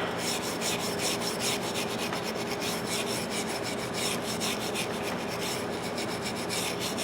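Brass wire brush scrubbed by hand in rapid back-and-forth strokes over the rusty steel of a RIDGID pipe wrench, cleaning off rust and pitting.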